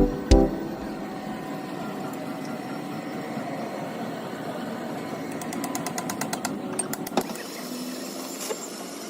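A workshop machine running steadily, with a quick run of rapid ticks a little past the middle.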